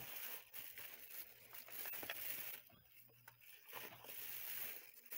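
Rustling, crinkling handling noise with a few sharp clicks, as hardware and cables are moved about by hand.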